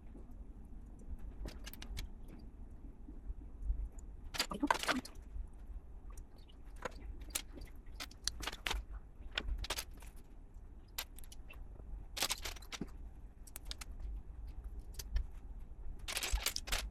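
Plastic LEGO pieces clicking and clattering as they are handled and snapped together, with several longer rattling bursts.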